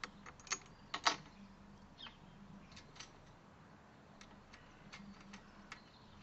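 Scattered light metallic clicks and taps as the metal pieces of a solar collector's mounting frame are handled and lined up against each other, the sharpest clicks about a second in and fainter ones now and then after.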